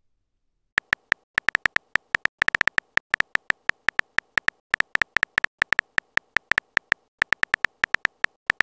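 Phone keyboard typing sound effect: a fast, uneven run of dozens of short, high-pitched clicks, one per typed letter, starting about a second in.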